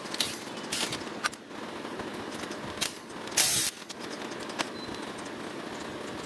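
Scattered clicks and light clatter of cables, connectors and a handheld tool being handled on the sheet-metal back of an LED TV, with one louder noise lasting about a third of a second about three and a half seconds in, over a steady background drone.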